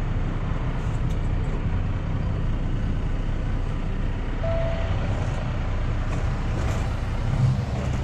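Semi-truck's diesel engine running steadily, a low, even rumble, with a short thin tone about halfway through.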